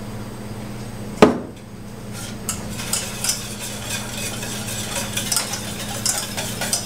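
Wire whisk stirring a liquid mixture in a stainless steel saucepan, clinking and scraping against the pan in quick, uneven strokes. A single sharp knock about a second in is the loudest sound.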